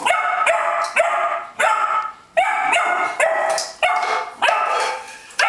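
Beagle barking over and over, about two sharp barks a second, at a tin holding a liver treat he can't get into.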